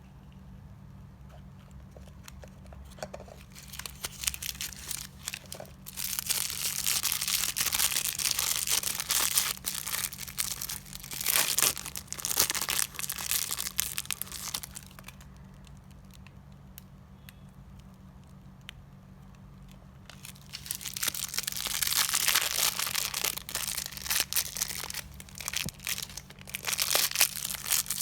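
Toy packaging crinkling and tearing as it is unwrapped by hand, in two long spells of handling with a quieter pause between.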